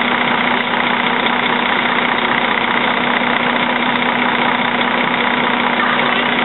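Fire tanker truck's engine running steadily: a constant hum over an even rushing noise.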